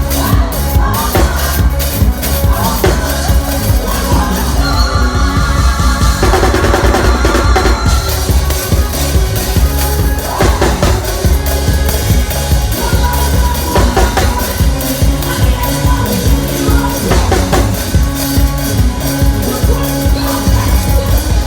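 Live church band music: drum kit playing a steady beat over a heavy bass line.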